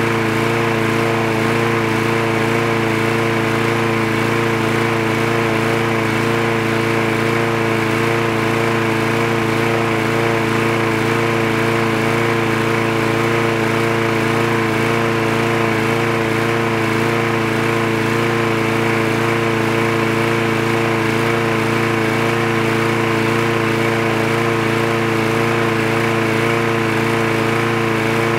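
Craftsman lawn mower's Briggs & Stratton engine running steadily at one constant speed.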